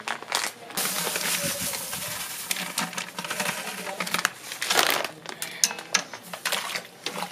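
Crushed Maris Otter malt pouring from a paper sack into a stainless steel brew kettle: a steady rattling hiss of grain for a few seconds, then a louder rustle of the sack near the middle and scattered ticks of kernels against the metal.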